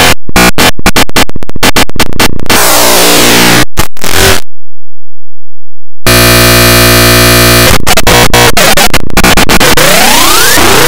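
Harshly distorted, clipped electronic noise from an effects-processed cartoon soundtrack. It stutters in rapid choppy cuts for the first couple of seconds. About six seconds in it turns to a steady buzzing tone, and near the end it gives way to noise with rising sweeps.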